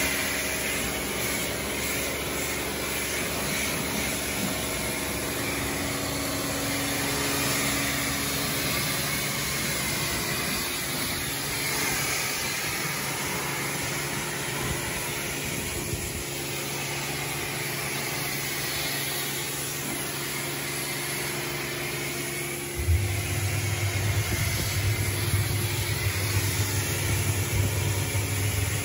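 Ehrle hot water pressure washer running with its burner on, spraying detergent through the lance: a steady mechanical drone with hiss. About 23 seconds in a deeper hum comes in and the sound gets louder.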